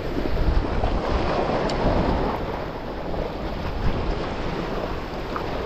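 Steady wash of the sea against shoreline rocks, with wind buffeting the microphone in a low rumble.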